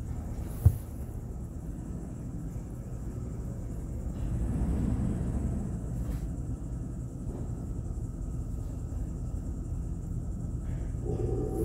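Touchless automatic car wash heard from inside a cargo van: a steady low rumble of water spray and wash machinery, with one sharp knock just under a second in. At the very end the dryer blowers start up with a rising whine.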